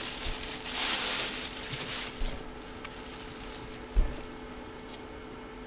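Box packaging rustling and crinkling as it is opened for the basketball, then a single thump about four seconds in, over a faint steady hum.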